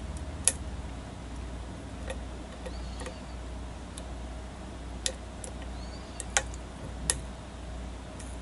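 Small clicks and ticks of a lock pick working the pins of a challenge lock under tension: four sharp clicks scattered among fainter ticks, over a low steady hum.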